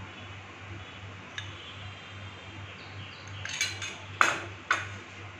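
Steel spoon clinking against a stainless steel plate as cornflour is added to mashed chhena: a faint tap early, then a few sharp clinks near the end, the loudest about four seconds in.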